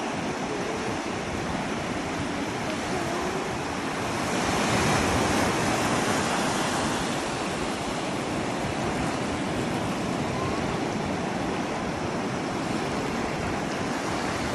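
Pacific Ocean surf washing onto the shore: a continuous rush of breaking waves that swells louder about four seconds in, then settles back to a steady wash.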